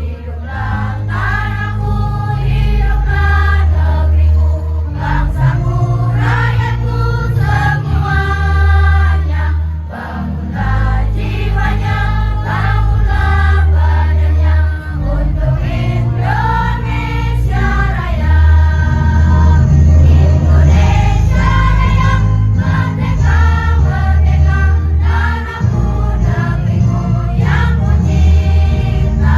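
A students' choir singing in unison over a loud accompaniment with a heavy bass line.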